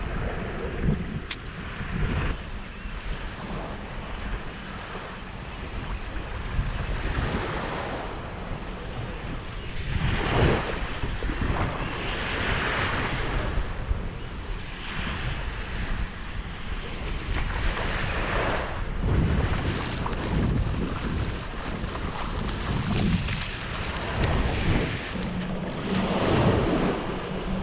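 Surf washing in on a beach, with waves swelling and breaking every few seconds, and wind buffeting the microphone.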